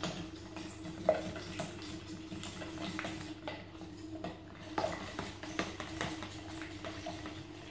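A spoon stirring egg in a plastic measuring jug, knocking and scraping against the sides in irregular clicks and taps, the sharpest about a second in.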